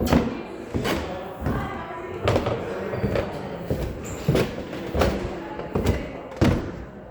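Wood giving sharp knocks and thuds over and over, about ten in all, roughly one every half second to a second.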